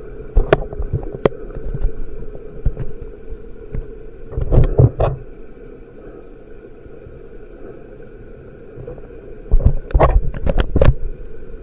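Muffled underwater noise picked up by a submerged camera: a steady low hum, broken by sharp knocks and clicks, a few near the start, a burst of them a little before the middle and another burst near the end.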